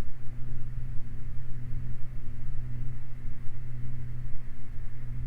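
Twin piston engines of a Beechcraft Baron heard from the cockpit, a steady low drone at reduced approach power with a constant hum and rumble.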